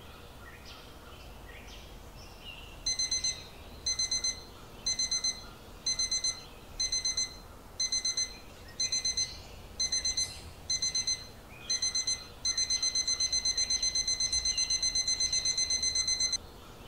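Electronic alarm beeping: from about three seconds in, short bursts of rapid beeps come about once a second, then turn into continuous rapid beeping for the last few seconds and stop suddenly. Faint bird chirps are heard before and between the bursts.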